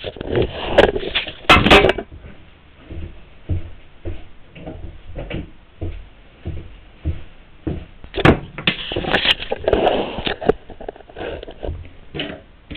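Irregular knocks and clatter of tools and the camera being handled on a workbench, with two louder spells of rattling near the start and about eight seconds in.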